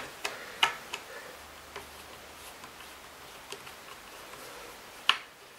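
Scattered light clicks and taps of a screwdriver and a small screw being set into a Kirby vacuum's scuff plate, with one sharper click near the end.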